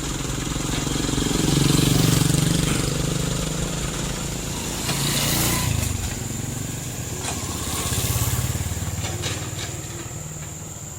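Motor vehicle engines running, swelling louder three times, about two, five and eight seconds in, as vehicles pass or rev.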